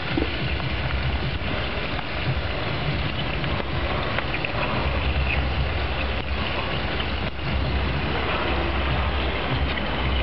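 Wood fire burning in a homemade rocket stove: a steady rushing draft with light crackles over a low rumble.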